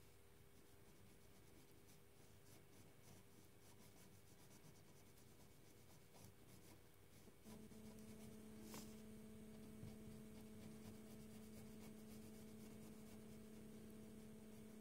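Faint scratching of a coloring pen's tip on paper, with a few small ticks, over a steady low hum that grows louder about halfway through.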